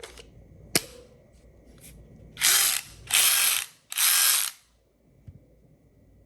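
Snap-on CTR861 14.4 V brushless cordless ratchet: a sharp click about a second in, as of the battery pack snapping home, then the ratchet's motor runs in three short trigger bursts of about half a second each.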